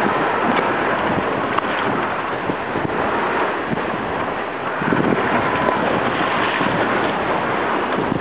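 Wind buffeting the microphone over the rush of waves and water along the hull of a sailboat under way in open sea, a steady noise that swells a little about five seconds in.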